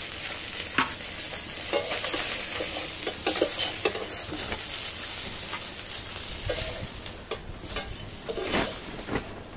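Hot oil sizzling in a karahi as lightly fried koi (climbing perch) are lifted out with a metal slotted spatula, with repeated scrapes and clinks of the spatula against the pan and a steel plate. The sizzle eases near the end.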